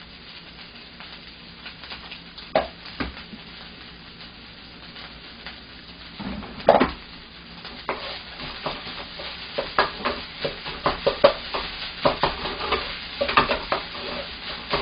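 Shrimp fried rice sizzling in a frying pan while a wooden spatula stirs and scrapes it against the pan. The spatula clicks and scrapes come sparsely at first, with one louder knock about seven seconds in, then quicken through the second half.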